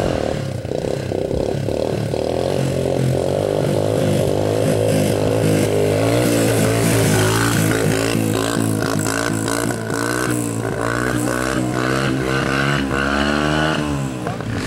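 Dirt bike engine running and being revved hard, its pitch rising and falling over and over through the second half.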